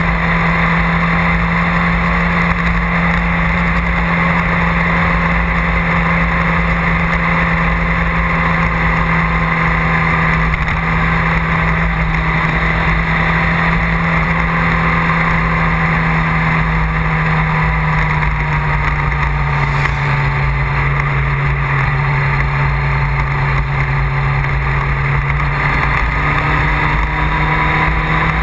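A vehicle engine running steadily at cruising speed, heard from on board, with wind rushing over the microphone. The engine note drops slightly about two-thirds of the way through.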